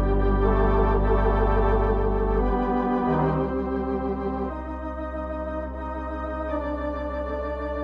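Organ music: slow sustained chords over a held bass note, the harmony shifting about three seconds in and again a little later.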